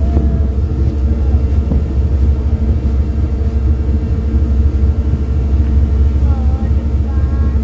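Ferry's engines droning: a loud, steady low rumble with a constant hum on top, felt through the deck while under way.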